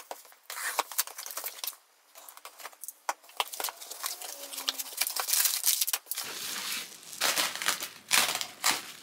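A cardboard shipping box cut open with a box cutter and its flaps pulled open, with tearing and rustling. From about six seconds in, plastic bubble wrap crinkles as it is pulled apart.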